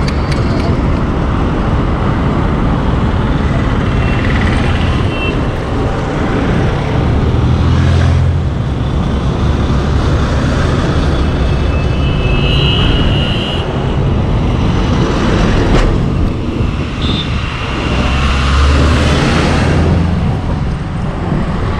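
Wind rushing over a moving motorcycle rider's camera microphone, mixed with the motorcycle's engine and busy highway traffic of trucks and cars going by. A few short horn toots sound in the middle of the stretch.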